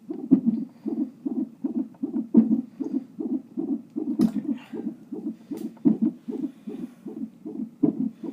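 Unborn baby's heartbeat through a fetal Doppler, fast whooshing pulses about 140 a minute, broken every second or two by a sharp knock: the baby's hiccups.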